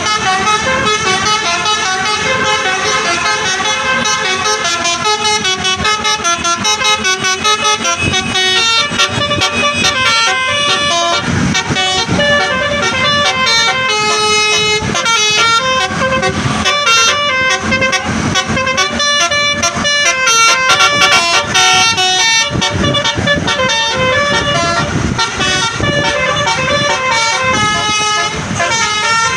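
Telolet multi-tone bus air horn, driven by a DAV melody module, playing a tune of quick stepping notes.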